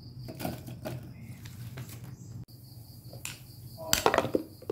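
Glass blender jar being handled: light knocks as ingredients go in, then a louder clatter about four seconds in as the plastic lid is set onto the jar. A steady high-pitched tone and a low hum run behind.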